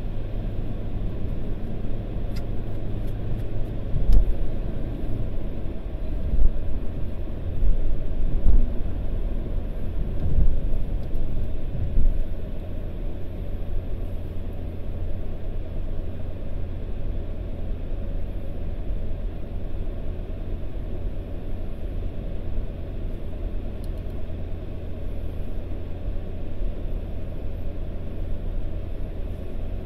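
Car driving along a road, heard from inside the cabin: a steady low rumble of engine and tyre noise. A few low thumps stand out in the first twelve seconds.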